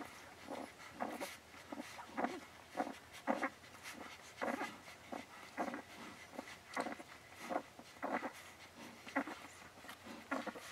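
Akita mother and her nursing 12-day-old puppies: soft breathy dog sounds repeating fairly regularly, about one every half second to second.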